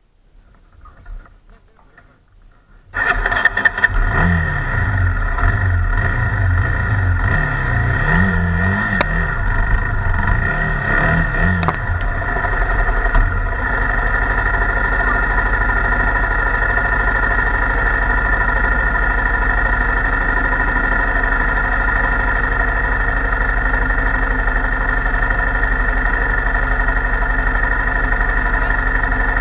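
Honda XR250 Tornado's single-cylinder four-stroke engine starting suddenly about three seconds in, revved up and down several times, then settling to a steady idle.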